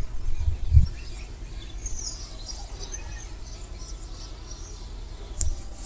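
Small birds chirping in short high calls over a faint steady background hiss, with low rumbling thumps in the first second and a single sharp click about five and a half seconds in.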